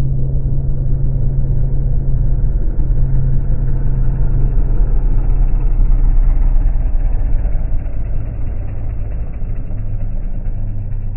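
Small propeller plane's engine droning as it flies past. It grows louder to a peak about halfway through, then eases off as its pitch drops slightly.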